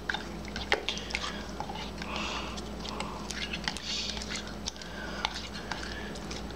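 Slime being stirred just after liquid starch has been added: a run of sticky, wet clicks and smacks as the mixture starts to thicken.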